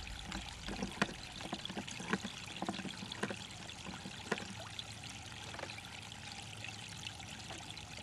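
Water trickling steadily, with scattered small plinks, more of them in the first half.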